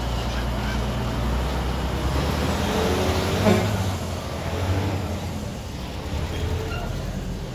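Road traffic: a motor vehicle's engine runs close by as a steady low rumble, loudest about three and a half seconds in and easing off after that.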